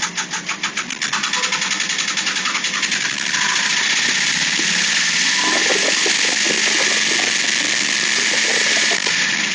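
Late Porsche 996 Carrera 4 flat-six engine running with a rhythmic clatter, about six or seven beats a second, turning louder and steadier from about three seconds in, with the beat returning at the end. This is the abnormal engine noise that ended in an engine replacement.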